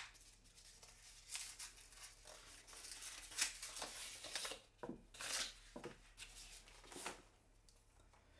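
Faint rustling, scraping and tearing of packaging as a pair of drum mallets is unwrapped and slid out of a small cardboard box, in short irregular bursts, with a sharp click at the very start.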